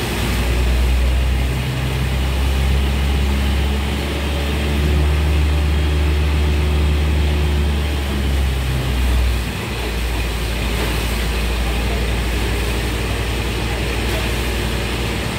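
Truck-mounted borewell drilling rig running steadily with a deep engine hum, under a rushing hiss as water gushes up out of the bore. The water comes up under strong pressure: a high-yield water strike, so strong that drilling cannot go on. The engine note dips briefly a little past the middle.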